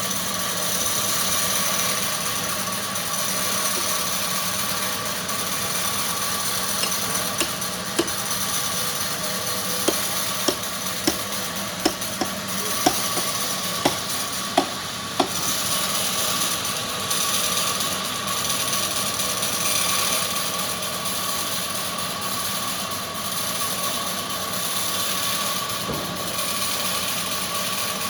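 Sawmill machinery running steadily with a constant whine. A series of about a dozen sharp knocks comes roughly a quarter to halfway through.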